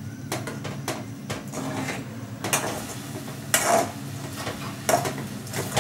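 A metal spatula stirring thick oats upma in an aluminium kadai, scraping and knocking against the sides of the pan at irregular intervals. A steady low hum runs underneath.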